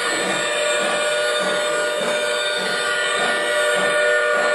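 Model steam locomotive's whistle from its built-in sound system, blowing one long steady chord that cuts off at the end, over a low rhythmic beat from the passing engine.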